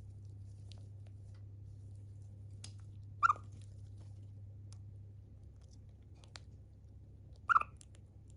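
Siberian chipmunk giving two short, sharp chirps about four seconds apart, with a few faint clicks between them over a low steady hum.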